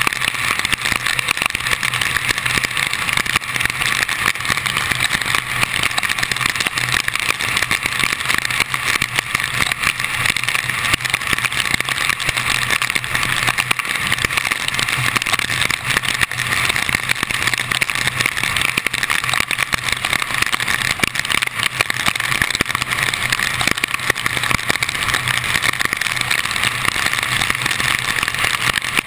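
Steady rush of wind, rain and tyre spray from a car driving at highway speed on a rain-soaked road, heard from its hood, with a low steady engine hum underneath.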